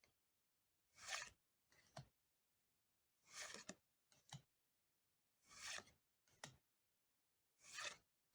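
Faint swishes of Pokémon trading cards sliding across one another, four times about two seconds apart. Each swish is followed by a light tap as the card settles into the stack.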